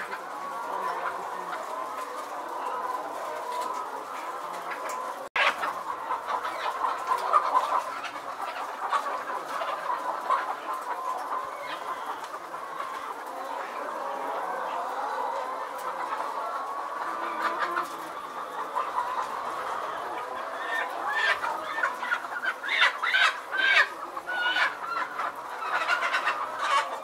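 A large flock of caged chickens clucking together continuously, with louder, sharper squawks standing out near the end.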